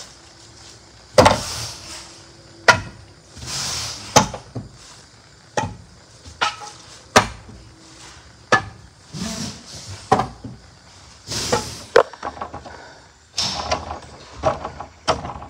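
Sledgehammer blows knocking apart the wooden boards of an old deck to free 2x6s and their nails: about ten sharp knocks, roughly one every second and a half, some followed by a longer scraping noise.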